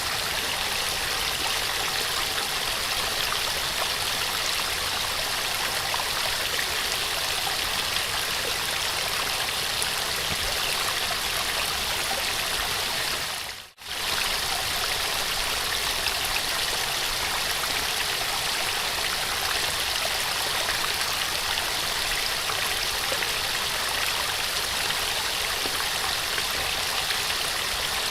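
Small waterfall rushing steadily, a continuous even splash of falling water. About halfway through the sound drops away for a moment and swells straight back.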